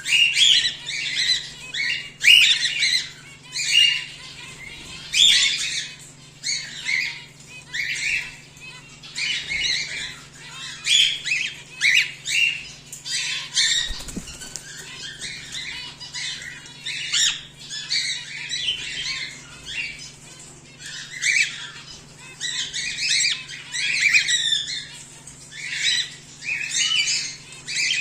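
Cockatiels calling: short, harsh calls one after another, several a second at times, with brief gaps, over a steady low hum.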